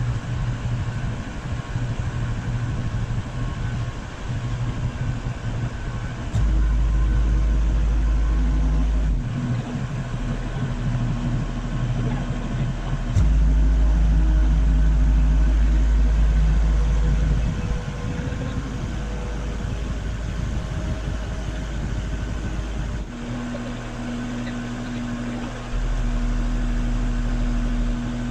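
Work-machinery engine running steadily. Several times it steps abruptly up into louder, deeper stretches lasting a few seconds each, and a steady humming tone joins it near the end.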